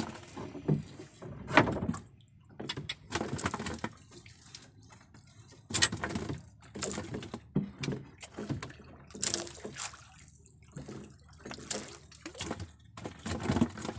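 Water splashing and lapping against the side of a small outrigger fishing boat, with irregular sharp knocks and handling noises as a handline is worked over the gunwale.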